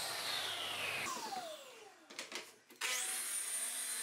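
Bosch plunge track saw's motor winding down, its whine falling in pitch over about two seconds; after a few light clicks it is switched on again about three seconds in and runs with a steady high whine.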